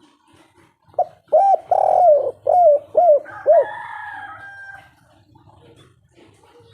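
Spotted dove cooing: one phrase of about six notes that starts about a second in, a couple of short coos, a longer one, then three short ones. A fainter, higher, drawn-out sound runs under the end of the phrase.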